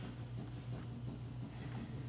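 Quiet room tone: a steady low hum with no distinct event.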